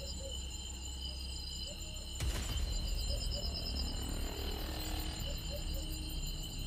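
Dark horror background music: a low drone that swells at a sharp hit about two seconds in. Under it, crickets chirp steadily.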